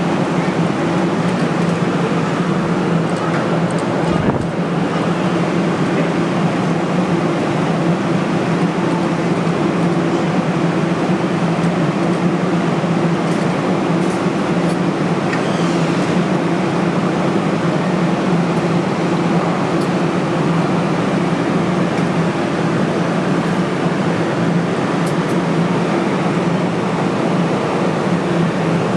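A steady, unchanging machine hum with a low droning tone.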